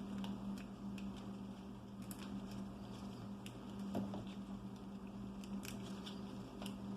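Resin support lattice on a 3D-printed model, softened by a degreaser soak and hot water, crackling in small irregular clicks and snaps as it is peeled off by hand. A steady low hum sits underneath.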